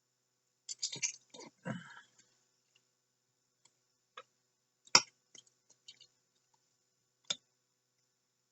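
Knife and fork cutting into a partly cooked chicken leg: scattered clicks and short scrapes of the cutlery. There is a cluster of these early on, and a single sharp knock about five seconds in, with another just past seven seconds.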